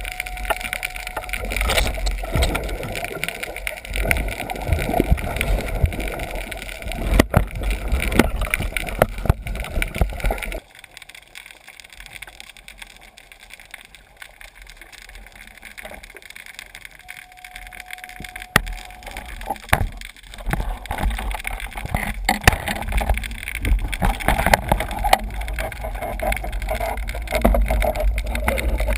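Muffled underwater noise picked up through a camera's waterproof housing: water moving and gurgling against it with a low rumble and occasional sharp knocks. It drops suddenly about ten seconds in and grows loud again after about twenty seconds.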